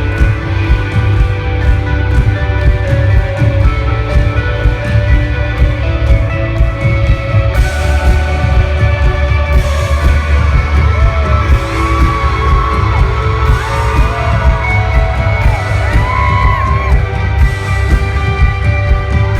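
A rock band playing live, loud and bass-heavy, with guitar. About halfway through, voices come in over the band, their pitch sliding up and down.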